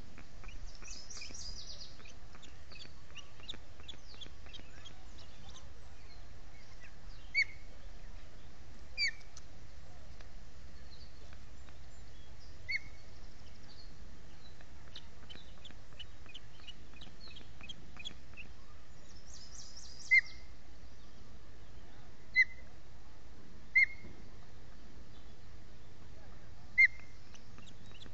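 Ospreys at the nest giving single short, sharp chirps every few seconds, more often in the second half. Two brief fast trills and faint small-bird chips sound behind them over a steady low background hum.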